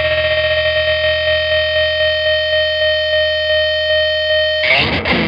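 Fuzz-distorted electric guitar chord held through an EarthQuaker Devices Hummingbird tremolo, its choppy pulsing slowing from about six to about three pulses a second. Near the end it breaks into a noisy scrape whose pitch falls away.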